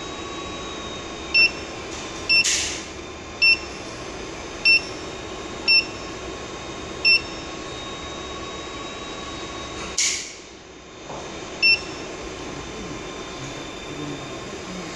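Maynuo M9716 DC electronic load beeping at each keypress, seven short beeps at uneven spacing, as its load current on a 48 V power supply under test is keyed from 40 A up to 50 A and then switched off. Steady cooling-fan noise runs underneath, with two brief rushing sounds, the second just before the fan noise dips for about a second.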